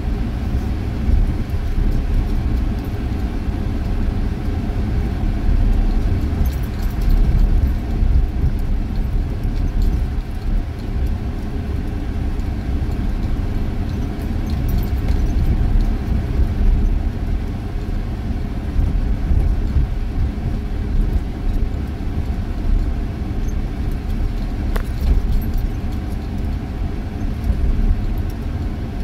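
Steady low rumble of a vehicle driving along a sand beach, heard from inside the cab: engine and tyre noise at a constant pace.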